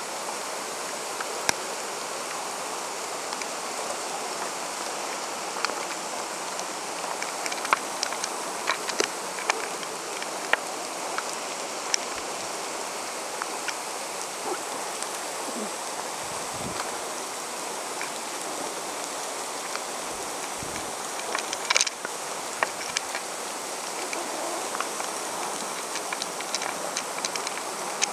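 Steady rush of running water with scattered light clicks and knocks, the loudest cluster about three-quarters of the way through.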